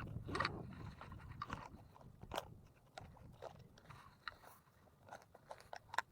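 Faint, irregular crinkling and clicking of fishing tackle being handled, as a soft plastic worm is dug out for a jig head.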